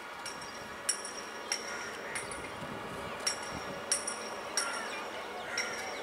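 Sharp metallic clinks, each ringing briefly, mostly in runs of three about two-thirds of a second apart: metal striking metal.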